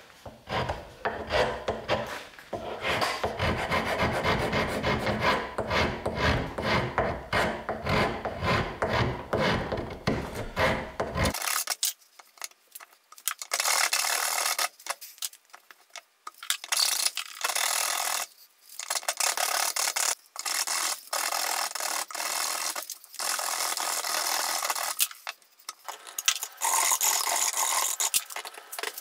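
A hand file rasping on the end of an oak axe handle, shaping it to fit the axe head's eye. Quick, continuous strokes for about the first ten seconds, then, after a sudden change, shorter runs of strokes with brief pauses between them.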